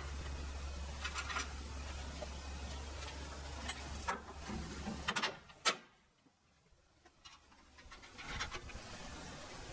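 Scattered clicks and light knocks of the drive's mounting bracket and bolts being handled and fitted, over a steady low hum. The hum drops out a little after five seconds in and comes back about two seconds later.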